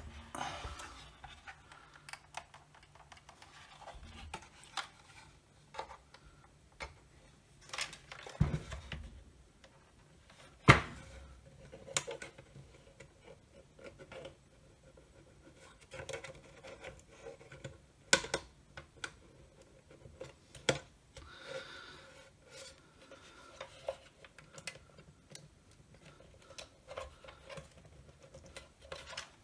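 Plastic housing of a Milwaukee M18 multi-bay battery charger being handled and prised apart: scattered clicks, knocks and scraping of plastic. The loudest are sharp knocks about 11 and 18 seconds in.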